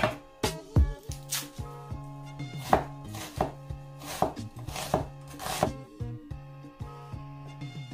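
Cleaver slicing an onion on a wooden cutting board: irregular knocks of the blade striking the board, thinning out after about six seconds.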